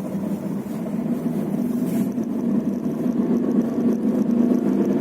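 A car on the move, with steady low running and road noise throughout.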